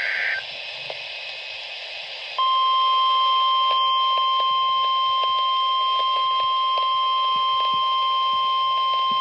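End of a SAME digital header burst (the warbling data tones of an EAS alert), then about two seconds of radio hiss. About two seconds in, the NOAA Weather Radio warning alarm tone starts: a single steady 1050 Hz tone that holds unbroken and loud. It signals that a new warning alert is about to be read.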